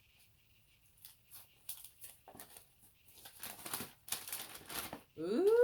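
Paper and packaging crinkling and tearing as a package is unwrapped by hand, in scattered rustles that grow louder and busier in the second half. Right at the end a loud rising call with a clear pitch begins.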